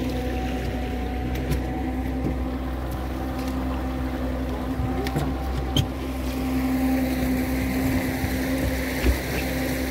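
Outboard motor of a small boat running steadily at low speed, a constant hum with an even pitch. Two brief knocks are heard, about six and nine seconds in.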